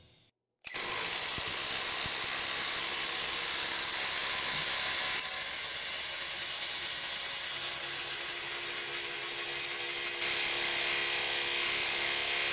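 Bosch IDH182 18 V brushless impact driver hammering steadily as it drives a 1/2-inch by 8-inch lag bolt into stacked timber under heavy load, a dense fast rattle of impacts. The sound is sped up. It dips slightly in level about five seconds in and comes back up about ten seconds in.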